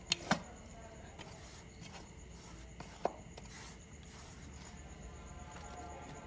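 Wood fire crackling under the griddle: two sharp pops just after the start and another about three seconds in.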